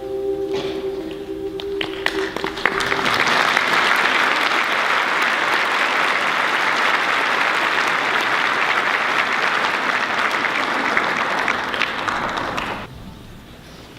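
The last held chord of a choral piece rings out as scattered claps begin. Then an audience claps steadily for about ten seconds, and the applause drops away sharply near the end.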